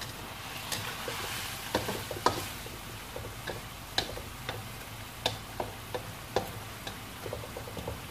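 A spatula stirring tempe and long beans in a wok: irregular scrapes and knocks of the spatula against the pan, with a hiss of sizzling in the first couple of seconds.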